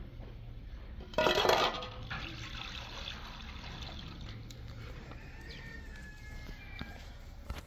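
Water poured from a plastic jug into a metal pot, with a louder splash about a second in and a softer trickle after.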